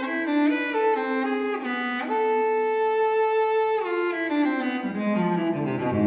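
Background music: a bowed-string melody in stepping notes, with one long held note in the middle and a line falling into low notes near the end.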